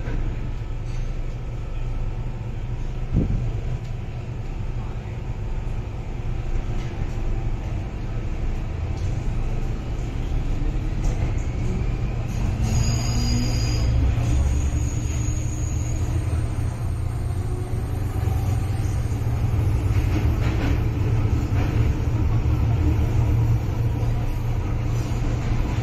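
Inside an MTR Kwun Tong Line M-Train car (A213), a steady heavy rumble of the train running on the rails, with a faint motor whine rising in pitch partway through as the train gathers speed: the 'ghost howl' traction-motor noise this car is known for. A few short high tones sound near the middle.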